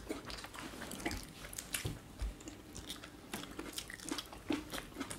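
A person chewing and biting crunchy food, with many small irregular crisp crunches.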